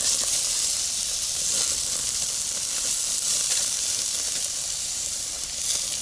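Chicken pieces and onion sizzling on a portable grill: a steady hiss, with a few light clicks as a fork turns the meat on the grate.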